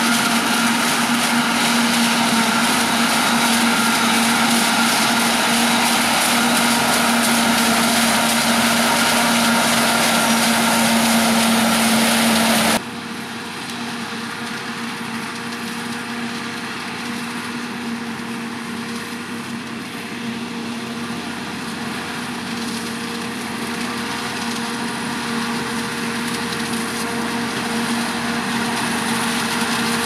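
Claas Jaguar 970 self-propelled forage harvester chopping standing maize: a steady, heavy machine drone with a held whine and the crunching of stalks going through the chopper, with the tractor pulling the trailer alongside. The sound drops suddenly about a third of the way in, then grows slowly louder toward the end.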